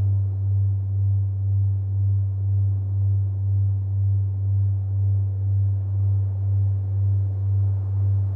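Deep, steady electronic sine-tone drone, pulsing about twice a second, over a faint low rumble of noise.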